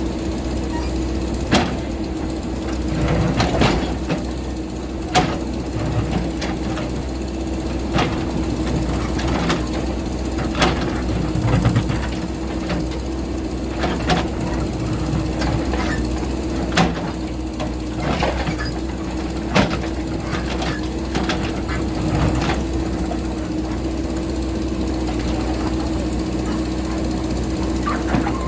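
JCB backhoe loader's diesel engine running steadily, with a sharp knock every two to three seconds as the bucket works rocky ground.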